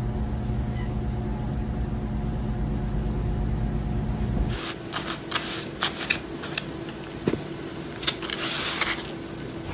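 A steady low electrical hum that stops abruptly about four and a half seconds in. It gives way to irregular crinkling and rustling clicks as a hand grabs a muffin in its paper case.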